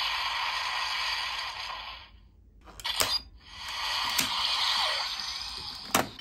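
CSM Sengoku Driver toy belt sounds: an electronic standby loop plays and cuts off about two seconds in. Then come sharp plastic clicks as a lockseed is handled and locked into the buckle, and a new electronic sound starts up. A louder click near the end is the lock being pressed shut.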